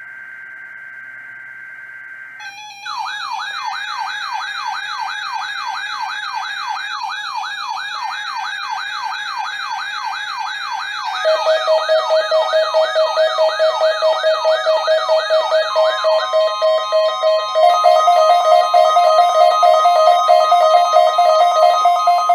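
NOAA Weather Radio weekly test signal and alert alarms. A steady tone is followed, about two and a half seconds in, by a fast warbling siren-like alarm sweeping up and down about three times a second. Pulsing beeps join about eleven seconds in, and the warble gives way to steady tones before the end, several alarms sounding together.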